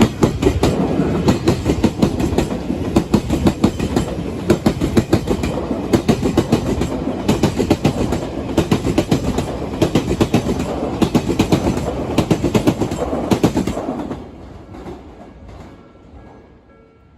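Odakyu train passing, its wheels clacking over the rail joints in a rapid, dense run, then fading away after about fourteen seconds as the last car goes by.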